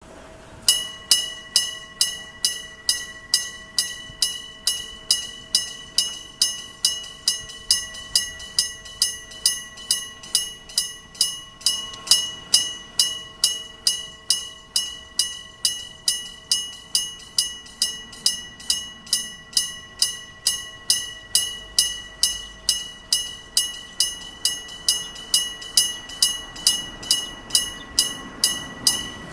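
Electromechanical bell of a Japanese railway level crossing, its hammer striking the gong at about two and a half strikes a second, each strike ringing and fading: the crossing warning that a train is approaching. A low rumble grows in the last few seconds.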